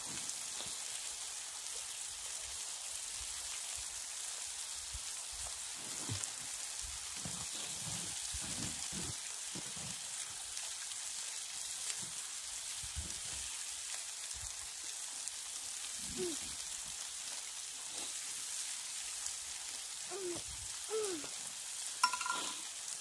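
A steady, even hiss, with a few faint short sounds near the middle and end.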